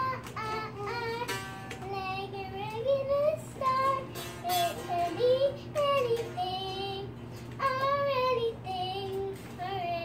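A young girl singing solo, long held notes that glide up and down.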